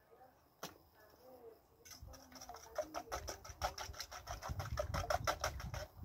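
A fork beating eggs in a stainless steel bowl: rapid, even clicks of the tines against the metal, starting about two seconds in and growing louder. About half a second in there is one sharp tap.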